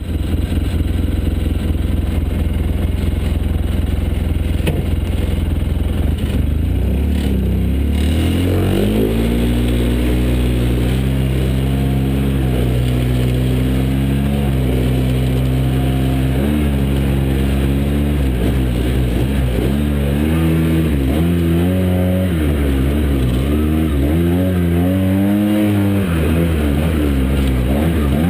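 Side-by-side UTV engine running while driving: a steady low drone for the first several seconds, then, from about eight seconds in, the engine note rising and falling again and again as the throttle is worked.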